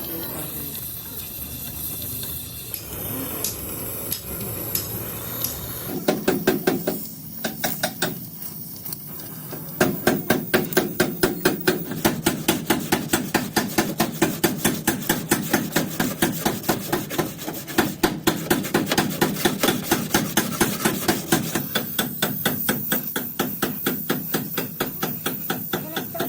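Hammer beating a damaged car body panel in quick, regular blows. A short run starts about six seconds in, then after a brief pause the blows run steadily at about four a second.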